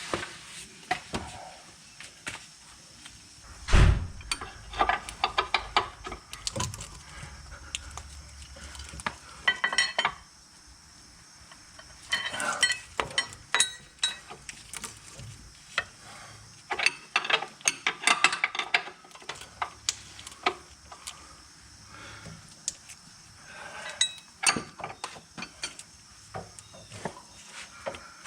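Metal hand tools (wrenches and sockets) clinking and clicking against the rear sway bar link hardware of a BMW E39, in short clusters of quick ticks. One heavy thump about four seconds in is the loudest sound.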